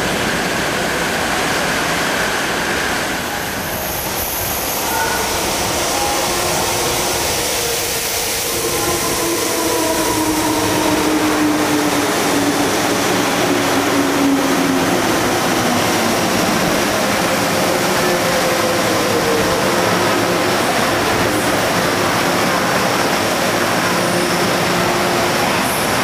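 MTR electric trains running through the station: a steady rush of wheel and running noise. From about a third of the way in, a motor whine glides slowly down in pitch as a train moves alongside the platform.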